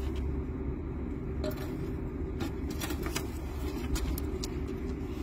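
Steady low mechanical drone of a running engine or machine, with several short light clicks and rattles over it.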